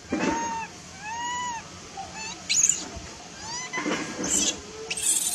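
Baby long-tailed macaque crying: a couple of arched, whimpering coos, then higher rising squeals about halfway through and harsh screams later on.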